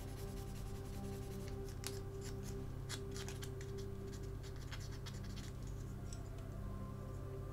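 Fine-grit sandpaper (1200 and 2000 grit) rubbed by hand over the small clear plastic window unit of a diecast model: soft, irregular scratching with scattered small clicks, over a steady low hum.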